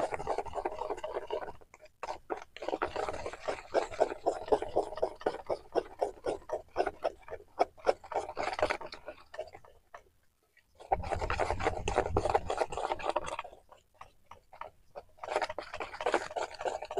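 Wire whisk beating a thin semolina and flour batter in a stainless steel bowl, quick scraping strokes against the metal. It comes in four runs with short pauses between them.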